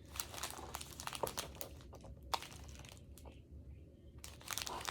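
Gift wrapping crinkling and rustling in the hands as a present is unwrapped: a run of small crackles, a brief lull about three seconds in, then more crackling near the end.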